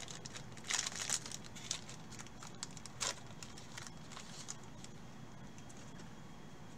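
Foil trading-card pack crinkling and tearing as it is opened by gloved hands, in scattered crackles over the first three seconds, then only faint handling.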